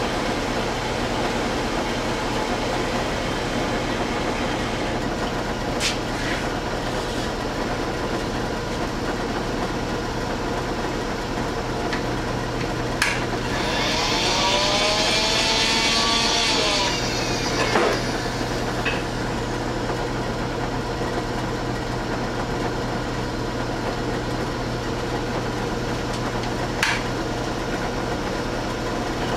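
Vertical milling machine running, a roughing end mill squaring up a metal exhaust-manifold spacer held in the vise: a steady machine hum with a few sharp clicks. About halfway through comes a louder hissing stretch with gliding tones.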